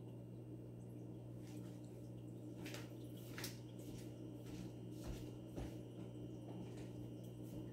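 Aquarium pump humming steadily at a low pitch, with scattered faint clicks and ticks of water over it.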